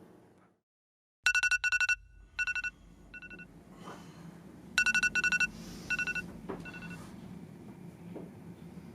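Robot vacuum giving a run of short electronic beeps, all at one pitch, in two bursts of quick chirps a few seconds apart, over a faint low hum.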